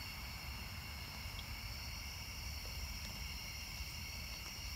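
Night insects calling in chorus: a steady, unbroken high trilling at several pitches at once. A low rumble on the microphone lies underneath.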